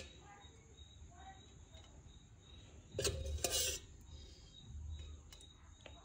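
A spoon clinking against a pressure cooker as spoonfuls of cooking oil are added, with a couple of sharp clinks about three seconds in.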